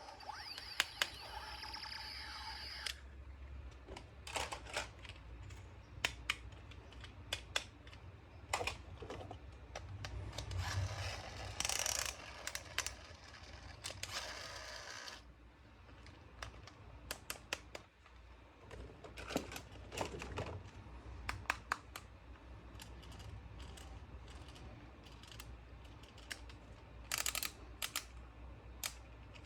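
Music for about the first three seconds, then irregular sharp clicks, snaps and brief rustles of hands handling small plastic toys.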